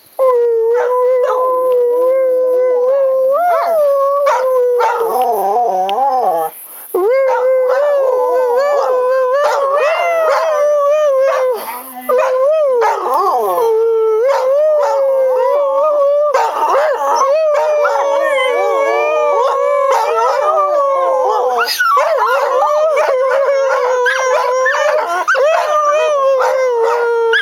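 Dogs howling together in a long, wavering chorus, the pitch sliding up and down around a steady centre. There are two brief breaks, one about a third of the way in and one near the middle.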